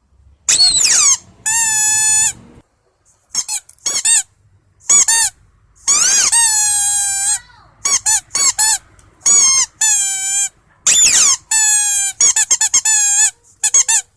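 Loud, high-pitched squeaking: short squeaks in quick clusters alternating with longer squeaks held for about a second, their pitch bending up and down.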